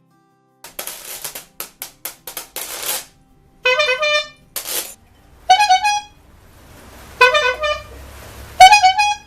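A quick series of dry, rattling shakes, then four short pitched honks from a horn-like noisemaker, spaced about a second and a half apart.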